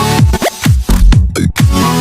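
Electronic dance music with a steady beat and deep bass notes that drop in pitch about twice a second.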